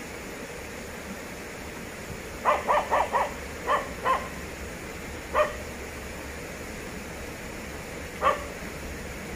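A dog barking: a quick run of four barks a couple of seconds in, then single barks spaced out, over steady low background noise.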